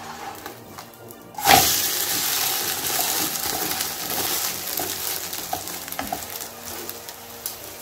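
Food dropped into hot oil in a pan, starting with a sudden loud sizzle about a second and a half in that slowly dies down while it fries.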